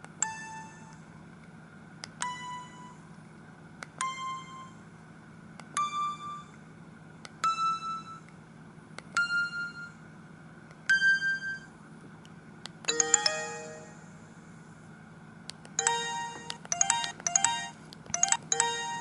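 Samsung SGH-E250i mobile phone ringtone playing: a slow series of single chiming electronic notes, one about every two seconds, each a step higher than the last. Past the middle it changes to a busier, quicker melody of many short notes.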